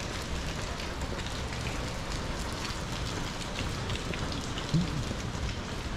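Steady rain falling on wet pavement, with scattered ticks of individual drops. A brief low pitched sound stands out about five seconds in.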